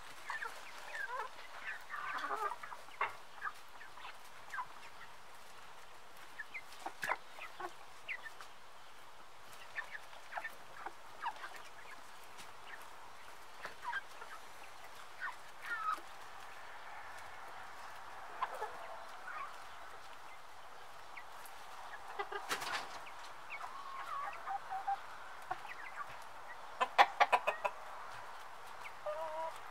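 A flock of brown hens clucking in short, scattered calls while they feed. Near the end comes a louder run of quick squawks.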